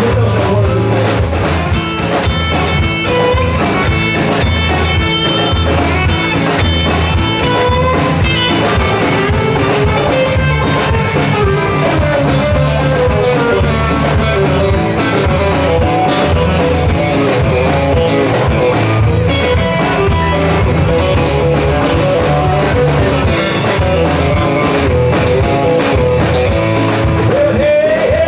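Live rock band playing an instrumental passage on drum kit, bass guitar, acoustic guitar and electric guitar, with a guitar-led melody and a steady beat.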